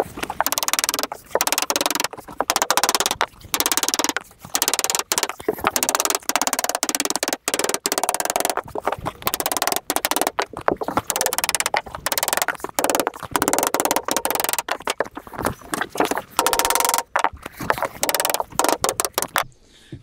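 A hammer strikes steel roofing sheet in rapid, uneven runs of blows, bending up the edge of a standing-seam flashing. The hammering stops just before the end.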